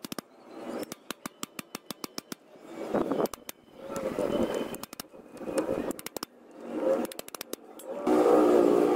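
Screwdriver working the screws out of a Honda CD-70's clutch pressure plate: runs of quick metallic clicks, about six a second, alternating with short raspy turning bursts, loudest near the end.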